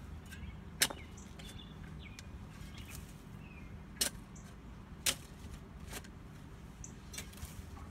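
Hand tool striking into soil and roots while digging: three sharp, hard blows, about a second in, four seconds in and five seconds in, with a few lighter knocks near the end.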